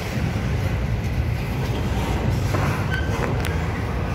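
Norfolk Southern intermodal train's container well cars rolling past on the track, a steady low rumble with a few sharp clicks from the wheels about three seconds in.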